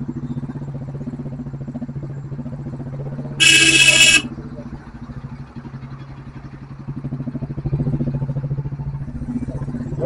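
Royal Enfield motorcycle's single-cylinder engine running at low speed in traffic with a steady low thump, picking up a little near the end. A vehicle horn sounds once, loud and under a second long, about three and a half seconds in.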